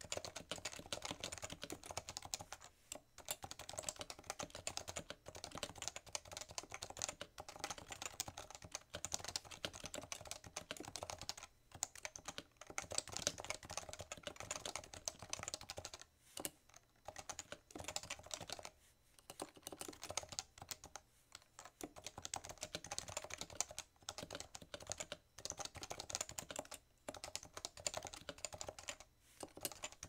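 Fast, continuous typing on a stock Leopold FC660C keyboard with Topre electrostatic capacitive switches: a dense stream of keystrokes bottoming out, with a somewhat deeper sound because the board sits on a bare desk with no mat. The stream breaks off for brief pauses every few seconds.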